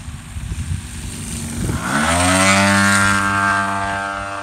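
Radio-controlled Corvus racer with a gas piston engine and a JetCat 80 turbine passing low. Its engine note drops sharply in pitch as it goes by, loudest just after, then fades. The throttle is held at a high idle that the pilot cannot get idled down.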